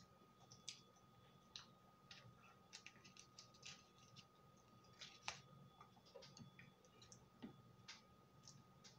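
Faint, irregular mouth clicks and chewing of a frosted cupcake being eaten close to the microphone, with a faint steady high whine underneath.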